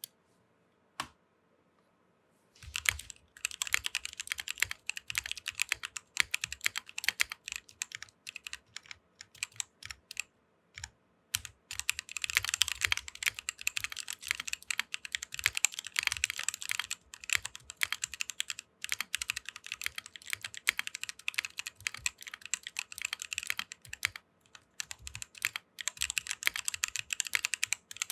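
Typing on a 60% mechanical keyboard with Kailh Speed Copper tactile switches lubed with Krytox 205g0, in an aluminium case with DSA PBT keycaps. A single keystroke about a second in, then fast, continuous runs of key clacks with a few short pauses.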